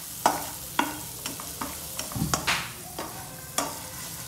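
A plastic spatula stirs a chopped curry base frying in oil in a non-stick wok, scraping and knocking against the pan at irregular moments over a steady sizzle.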